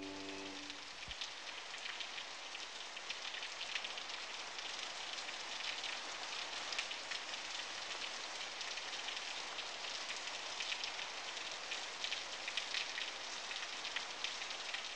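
Steady rain falling, an even hiss dotted with the fine crackle of individual drops.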